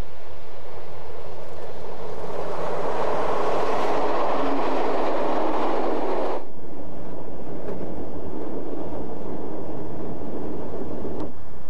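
Electric regional train passing along the track, its wheel-and-rail running noise swelling to a loud rush. About six seconds in it switches abruptly to the quieter, steady running noise heard inside a passenger coach of the moving train.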